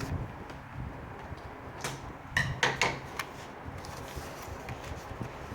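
Toy packaging being handled and opened: light rustling, then a quick run of short scrapes and clicks about two seconds in.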